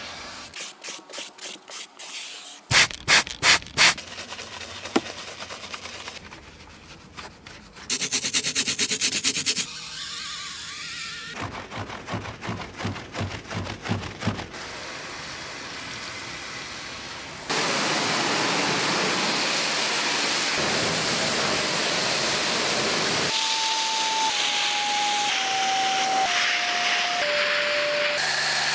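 Rhythmic rubbing and scrubbing strokes of car interior and grille cleaning, a cloth wiping a leather seat and a brush working foam. About halfway through, a vacuum nozzle on a carpet floor mat starts a steady loud hiss, and a falling series of five short tones sounds over it near the end.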